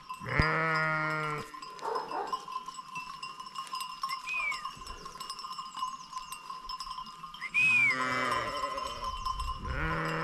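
Sheep bleating, three long calls, over the steady ringing and clanking of the flock's bells.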